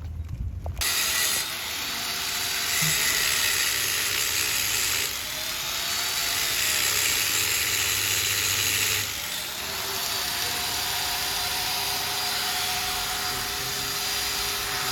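Handheld electric power tool running continuously with a harsh hiss, its motor pitch dipping and recovering as it is loaded against the work. It starts about a second in and changes its pressure a few times.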